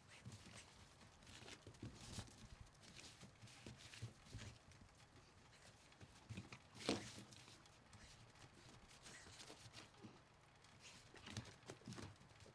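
Faint, irregular patters and scuffs of a dog's paws on a snow-covered wooden deck as it digs and pounces in the snow, with one louder thump about seven seconds in.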